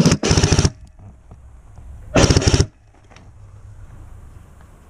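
Airsoft rifle firing short full-auto bursts, a rapid mechanical rattle of shots: two quick bursts right at the start and a third about two seconds in.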